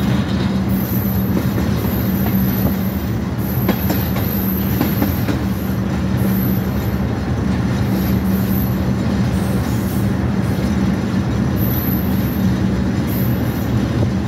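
Diesel-electric locomotive running steadily as it rolls along the track, its engine hum over the constant rumble of wheels on rail. A short run of clicks from the rails comes about four to five seconds in, and a faint high whine comes and goes.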